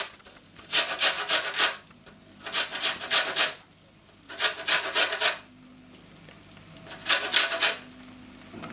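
Lemon rind being grated on a stainless-steel grater: four bursts of quick rasping strokes, each about a second long, with short pauses between.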